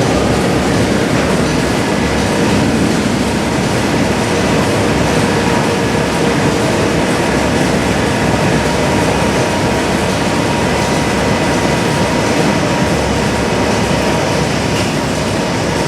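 Steady, loud industrial machinery noise from heat-treatment furnace equipment, an even rumbling hiss with a few faint steady hums running through it.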